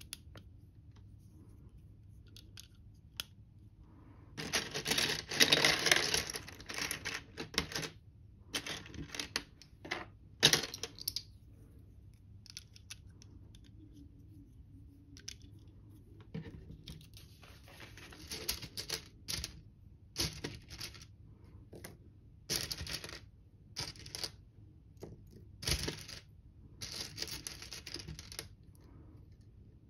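Plastic LEGO bricks clicking as they are pressed onto a small build, with bursts of clatter from loose plastic pieces being handled and sifted through in a tray. The sounds come in separate snaps and short rattles with quiet gaps between them.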